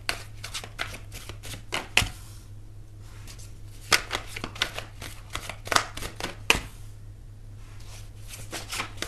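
A tarot deck being shuffled by hand: quick runs of card clicks and slaps in three spells, with short pauses between them.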